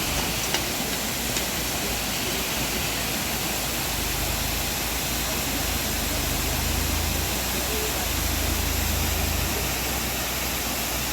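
Waterfall: a steady rush of falling water close by, with a low rumble that swells from about four seconds in.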